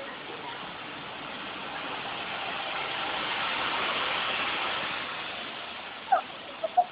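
A motor vehicle passing on the street, its engine and road noise swelling to a peak midway and fading away. Near the end come three brief high squeals.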